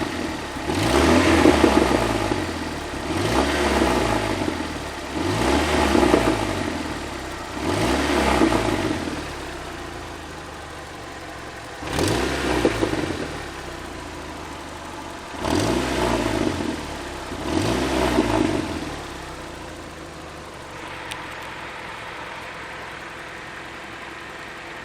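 Toyota 4A-FE inline-four engine revved in seven short blips, each rising and falling back, then idling steadily for the last few seconds. The engine has a strange knock.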